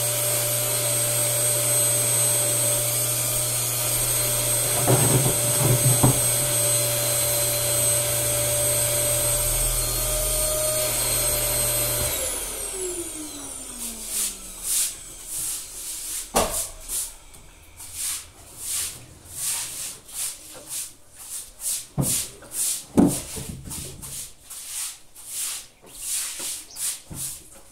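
An electric motor runs steadily with a high whine, then is switched off about twelve seconds in and spins down with falling pitch. After that come irregular short scraping or brushing strokes, one or two a second, with a few knocks near the start.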